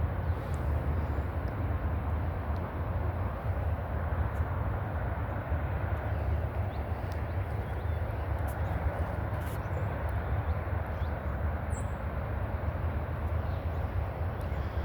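Steady low rumble of a diesel freight train's locomotives running slowly, under an even wash of outdoor noise.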